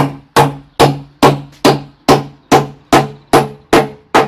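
Hammer nailing down wooden floor planks: eleven even strikes, about two and a half a second, each ringing briefly. The hammering stops near the end.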